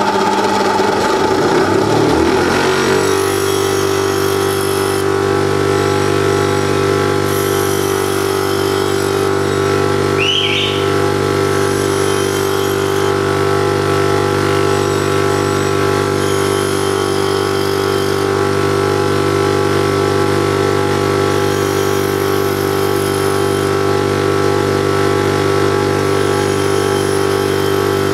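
Bench grinder running with a steady motor hum that settles to an even pitch about three seconds in, as a drill bit is ground on the edge of the wheel in short passes that add a hiss every few seconds.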